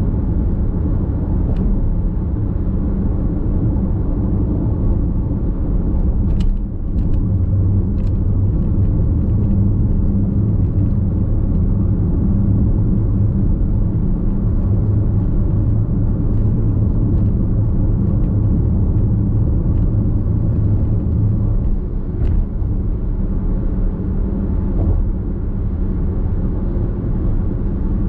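Steady low rumble of tyre and road noise from a Nissan X-Trail Hybrid cruising at expressway speed, heard from inside the car, with a few faint clicks.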